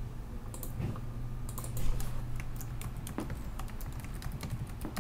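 Typing on a computer keyboard: a run of quick key clicks over a low steady hum.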